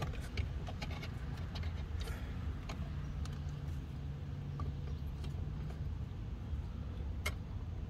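Small scattered clicks and taps of plastic mount parts being handled and fitted together, over a low steady hum.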